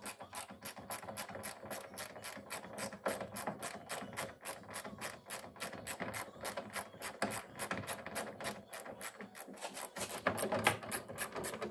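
Hand socket ratchet clicking steadily, about four clicks a second, as it turns out a door hinge bolt.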